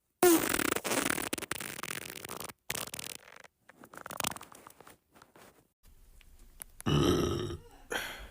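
A person farting: a long, loud, rough fart lasting about two seconds, then shorter sputters, and a louder pitched blast near the end.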